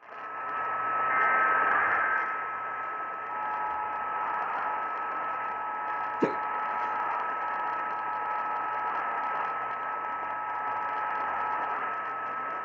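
AM radio reception through heavy static and a steady heterodyne whistle, carrying an Emergency Alert System activation: a brief burst of data-header tones about a second in, then the faint two-tone attention signal for about eight seconds. A single sharp static crack sounds about halfway through.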